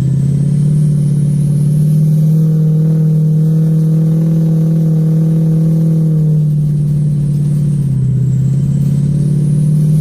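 A diesel pickup truck's engine pulling steadily up a snowy trail. Its pitch rises about a second in, holds, then drops and climbs again near the end.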